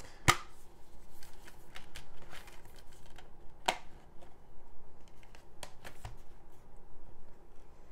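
A plastic Blu-ray keepcase being handled: a sharp snap as the case is opened, a second sharp click a few seconds later as the disc is pressed off its centre hub, with lighter plastic clicks and rustling between.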